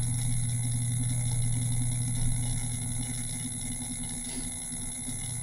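Steady low hum of background room or equipment noise.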